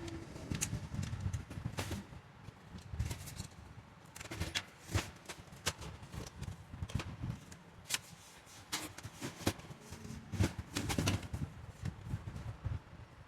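Irregular clicks, taps and knocks of handling, over a low steady rumble.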